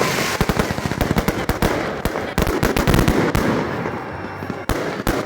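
Fireworks going off: a dense, irregular run of sharp cracks and bangs, many in quick succession.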